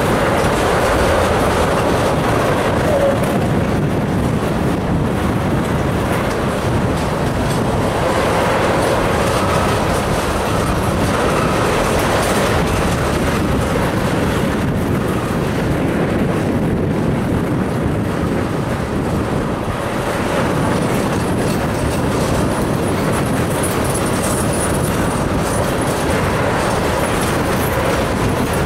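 Empty ethanol tank cars of a freight train rolling past, their steel wheels running steadily on the rails.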